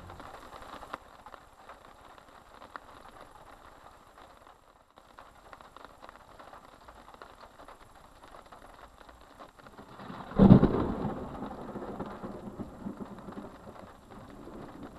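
Thunderstorm: steady rain hiss, then, about ten seconds in, a sudden thunderclap that rolls off into rumbling over the next two seconds or so.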